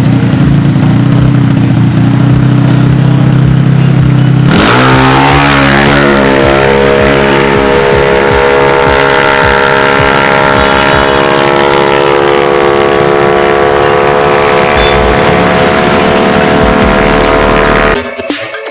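Drag-tuned Yamaha Mio motorcycle engine, very loud, running at a low steady note, then revved hard about four and a half seconds in and held at high revs for over ten seconds before cutting off near the end.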